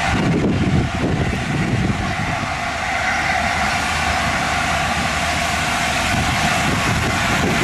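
LNER A4 class steam locomotive running tender-first towards the platform: a steady rumble of the moving engine and train, growing a little louder as it comes closer.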